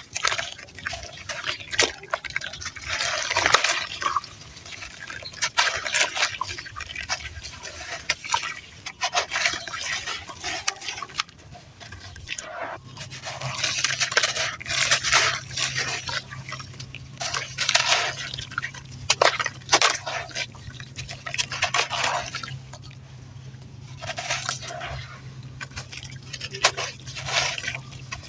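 Close-up gritty crunching of dry red dirt being bitten and chewed, in repeated crunches every second or two with sharp clicks. A low steady hum comes in about halfway.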